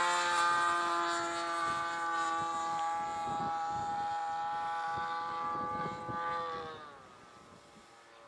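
Radio-controlled model Hawk jet flying overhead, its motor whining steadily, then dropping in pitch and fading about seven seconds in.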